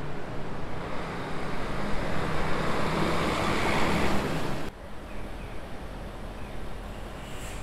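City bus driving past close by, its engine and tyre noise swelling to the loudest point a little over four seconds in, then cut off abruptly. After that comes a lower, steady background of street traffic.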